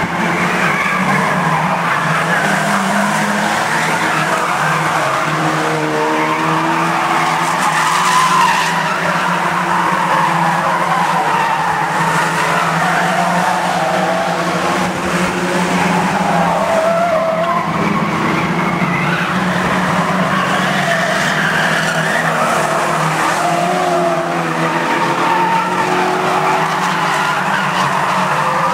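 A pack of banger-racing cars' engines running hard together around the oval, loud and steady, with wavering tyre squeal as they slide through the corners.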